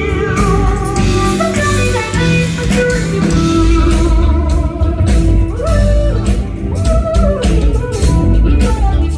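Live rock band playing loudly: an electric guitar lead with bending, wavering notes over bass and a drum beat, heard from within the crowd.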